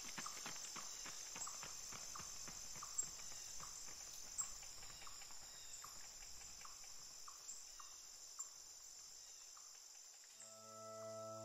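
Faint, steady high chirring of crickets, with a slow clip-clop of hooves fading away over the first several seconds. A held musical chord comes in near the end.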